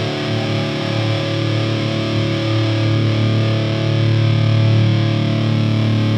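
Live band's distorted electric guitars holding one sustained, ringing chord, swelling slightly in level, with no drums: the held intro before a hardcore song kicks in.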